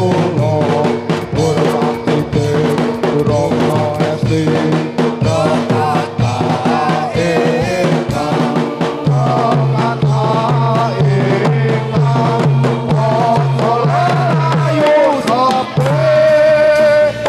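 Music with drums beating a steady rhythm under a pitched, wavering melody line.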